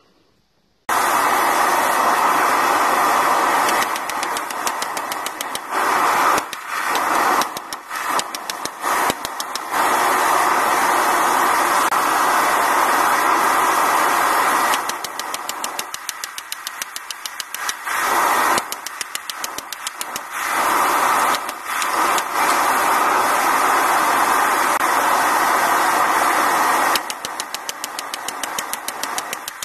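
Homemade forge running with a loud, steady rush, starting about a second in. Near the end, hammer blows on hot steel at the anvil ring out about three times a second, with the forge still running behind them.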